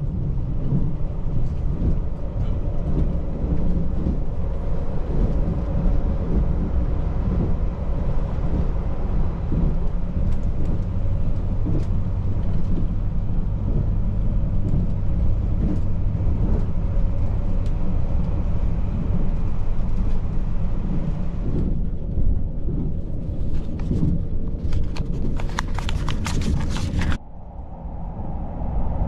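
Limited Express Kamui train running, heard from inside the carriage: a steady low rumble with scattered clicks and knocks. A spell of sharper rattling clicks comes about five seconds from the end, and then the noise changes abruptly.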